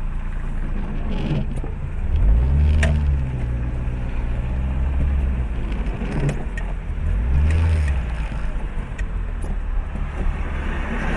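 Car engine running at low speed, heard from inside the cabin, swelling and rising in pitch twice as the car pulls forward slowly, with a few sharp clicks.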